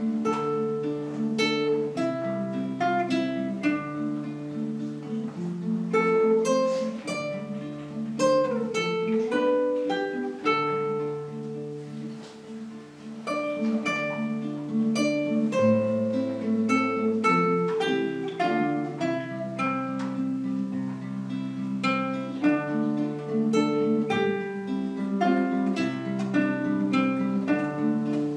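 Two acoustic guitars playing a duet: a picked melody over repeated plucked chords and low bass notes.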